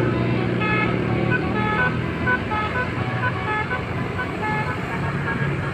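Telolet multi-tone musical car horn playing a quick run of short notes at changing pitches, over a steady low engine rumble.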